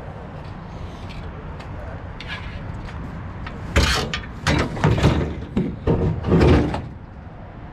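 Scrap being handled and rummaged through, a loud run of irregular rattling and clattering for about three seconds in the middle, over a steady low rumble.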